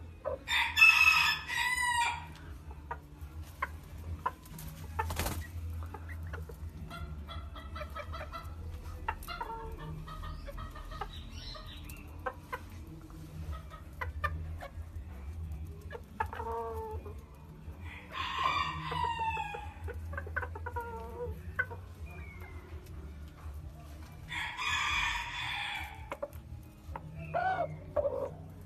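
Roosters crowing three times, about a second in, past the middle and near the end, with hens clucking softly in between.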